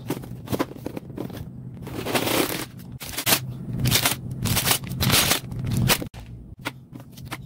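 Sealed plastic bags of LEGO pieces crinkling and rustling as they are handled, in irregular crackly bursts. A low steady hum runs underneath.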